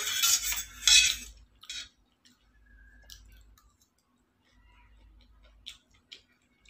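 Metal fork scraping and clinking against stainless-steel plates as noodles are stirred and picked up, loudest in the first second, then a few faint clicks.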